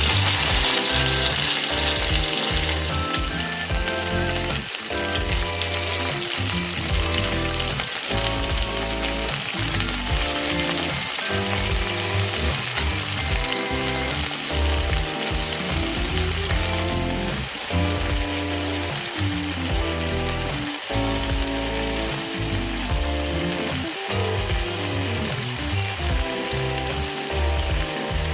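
Food frying in a pan, a steady sizzle that is strongest in the first few seconds and again from about halfway through, under background music of shifting held notes.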